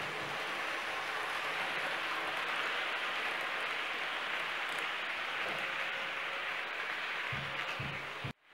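Märklin H0 model train rolling on C-track, a steady rolling noise of metal wheels on the plastic-bedded rails as it passes close by. The sound cuts off abruptly near the end.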